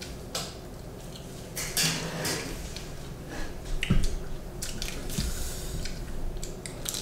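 Eating sounds at a dinner table: chewing, the rustle of food and lettuce leaves handled, and scattered clinks and knocks of dishes and cutlery, the sharpest clink about four seconds in.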